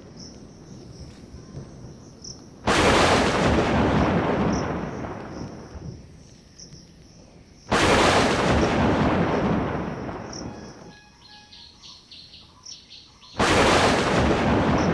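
Three claps of thunder, about five seconds apart, each breaking suddenly and rumbling away over several seconds. Faint bird chirps come between them.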